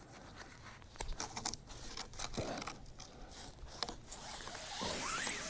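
Rope being wrapped and tied around a tree and a log: irregular rustling and scraping of cord against bark and wood, with scattered small clicks and a faint rising squeak near the end.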